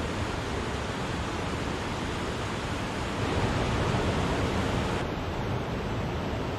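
A waterfall's falling water making a steady, dense rush that swells slightly about three seconds in.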